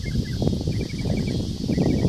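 Gusty wind buffeting the microphone in uneven low rumbles, with a bird chirping in quick short notes and a steady high-pitched hiss behind.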